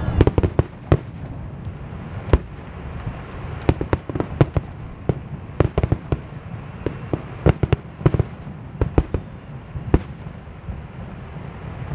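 Aerial fireworks shells bursting: an irregular run of sharp bangs and pops, at times several a second, over a steady low background rumble.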